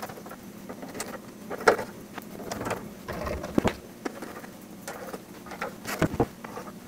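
Small hand screwdriver turning the screws into the metal case of an Anan G2 SDR transceiver, with scattered clicks, scrapes and knocks as the case is handled. A few sharper knocks stand out, the strongest near the end as the unit is lifted.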